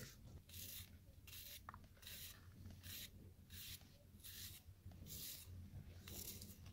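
Kitchen knife slicing a raw onion held in the hand, one thin slice after another: a soft, crisp cutting sound a little over once a second, faint.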